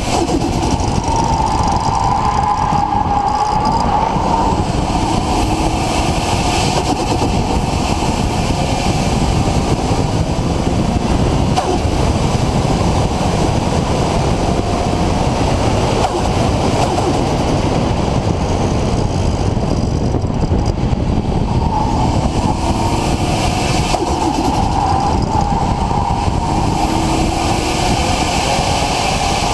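Nissan RB26 straight-six running steadily with a large single Garrett GTX4088R turbocharger. It is loud and continuous, with a wavering mid-pitched tone that rises and falls in the first few seconds and again near the end.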